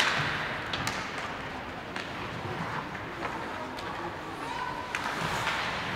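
Ice hockey game sounds in a rink: a steady wash of skates on ice, with scattered sharp clacks of sticks and puck every second or so and faint voices of spectators and players.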